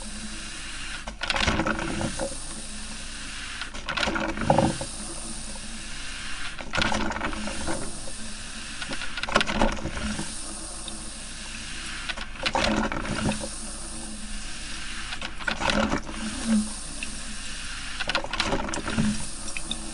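Coffee maker brewing: a steady hiss broken by louder gurgling spurts every two to three seconds.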